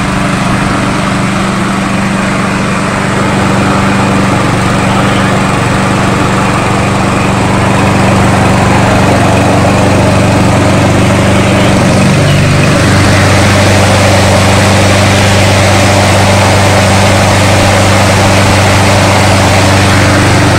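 Stihl RM 248 push lawn mower's engine running steadily. It gets louder a few seconds in and again about eight seconds in, and its tone shifts lower about two-thirds of the way through.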